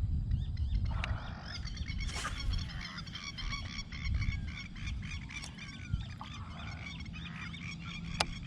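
A chorus of rapid, repeated short animal calls, many overlapping, over a low rumble, with a single sharp click near the end.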